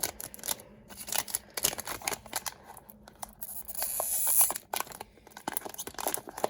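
Foil trading-card booster pack crinkling and being torn open, in short crackles with one longer tearing rasp about four seconds in.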